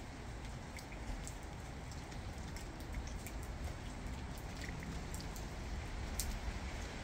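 Rain falling steadily, with scattered individual drops ticking sharply close by.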